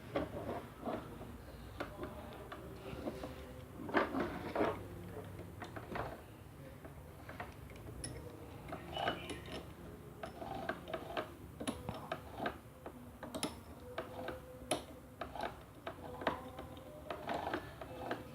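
Irregular small clicks, taps and rattles of hands handling a Bosch GSB 13 RE drill and a drill bit, fitting the bit into the drill's chuck; the drill's motor is not running.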